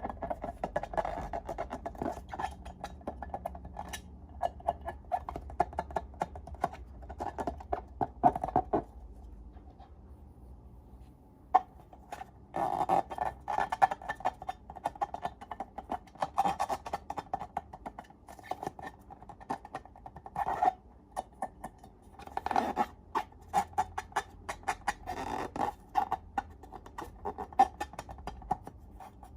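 Slime being squished and poked by hand, making runs of sticky clicks and little pops, with a short pause about nine seconds in before the squishing resumes.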